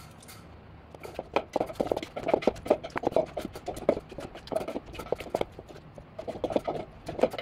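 Wooden pestle knocking against a mortar as green papaya salad is lightly pounded and tossed to combine it, not pulverised, with a spoon turning the shreds. The knocks come irregularly, about three or four a second, starting about a second in.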